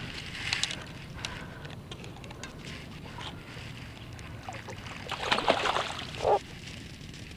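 Water sloshing and lapping around a paddle board, with a louder stretch of splashing about five seconds in.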